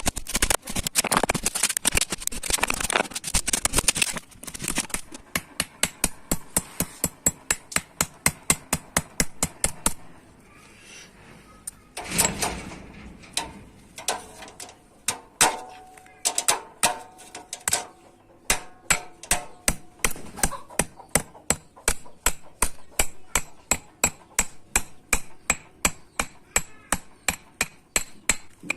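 Hand hammer striking a metal bread-baking pan as it is forged: a quick, dense run of blows at first, then steady strikes about two to three a second, with a short pause about ten seconds in and the metal ringing under some of the blows in the middle.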